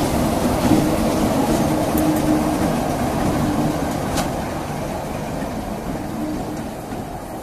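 A pair of British Rail Class 33 diesel locomotives running past together, their Sulzer two-stroke engines making a steady drone that slowly fades as they pull away. Two sharp clicks come through, about two and four seconds in.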